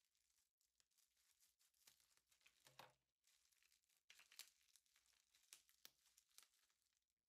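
Very faint crinkling and rustling of something being handled, broken by many short light clicks.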